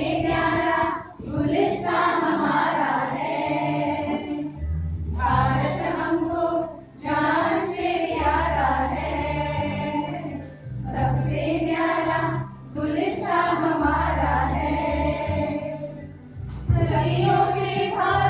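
A chorus of children and women singing a song in unison, in phrases of two to three seconds with short breaks between them.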